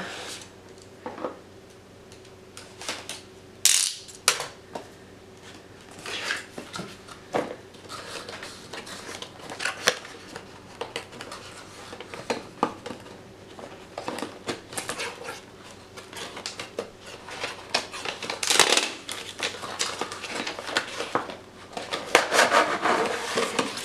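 Hard clear-plastic and cardboard packaging of a GoPro Hero 5 being opened by hand: scattered clicks, taps and scraping rustles as a box cutter works at the plastic case and the cardboard sleeve is slid along it. A sharp click stands out about four seconds in, and longer scraping rustles come near the end.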